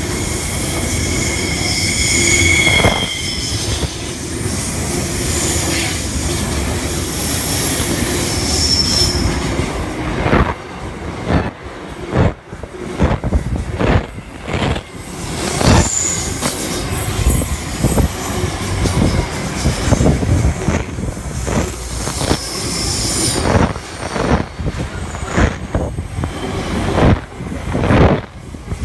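Long freight train of boxcars and container wagons passing close by: a continuous wheel rumble with short bursts of high-pitched wheel squeal. In the second half the wheels give many sharp clicks and knocks over rail joints.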